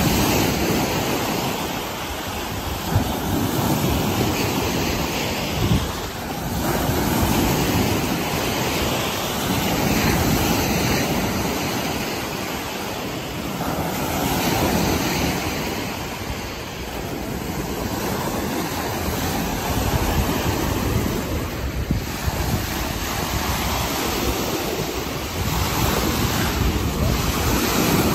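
Small Lake Erie waves breaking and washing up a sand-and-pebble shore, the surf swelling and ebbing every few seconds, with wind rumbling on the microphone.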